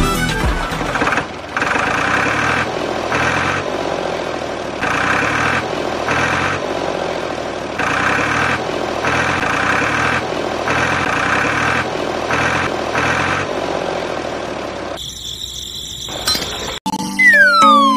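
Tractor engine running steadily, with regularly repeating surges that sound like a looped engine sound effect. Near the end it gives way to a few loud falling whistle-like tones.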